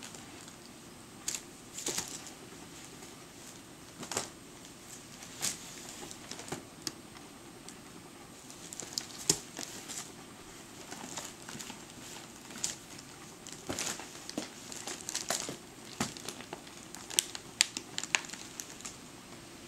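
An empty dog food bag crinkling and crackling as a dog roots around inside it with his head. The crackles come in irregular bursts, scattered at first and busier through the second half.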